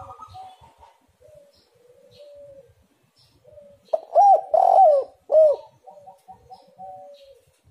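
Spotted dove cooing: soft low coos, then about four seconds in a loud phrase of about four rising-and-falling coos, then softer coos again.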